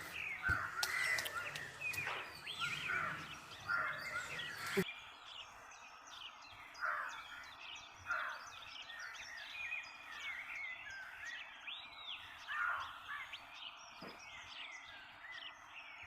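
Several birds calling outdoors: a scatter of short chirps and rising and falling whistled notes, with a harsher caw here and there. The background hiss drops away suddenly about five seconds in.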